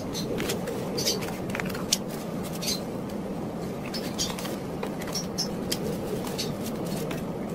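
Sheets of printed paper being handled and shuffled, giving scattered light rustles and ticks over a steady low background noise.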